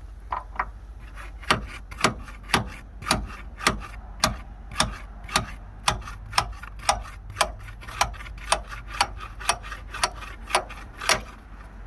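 Hammer striking a bushing driver tool set in a Jeep Wrangler door hinge, driving the old hinge pin bushing up and out. A few light taps, then about twenty steady blows, roughly two a second.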